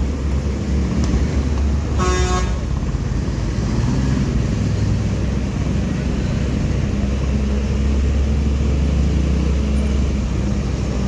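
Steady low rumble of vehicle engines in slow traffic on a steep hairpin bend, with one short car horn toot about two seconds in.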